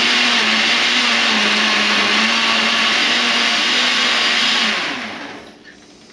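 Countertop blender running steadily as it chops an onion, celery and sweet pepper mixture for relish, then switched off about five seconds in, its motor winding down with falling pitch.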